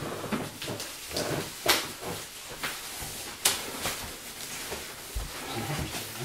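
Plastic-wrapped foam packing being handled and moved about, rustling and crinkling, with two sharp knocks about two seconds apart, the first about a second and a half in.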